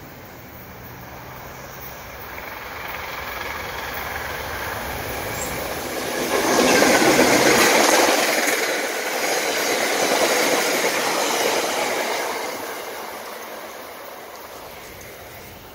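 An exo commuter train of bilevel passenger coaches approaching and passing close by. The wheel and rail noise builds steadily, is loudest about seven seconds in as the coaches go by, and fades away over the last few seconds.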